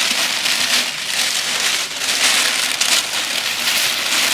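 White tissue paper rustling and crinkling as hands pull it apart and fold it back inside a gift box, an irregular crackly rustle.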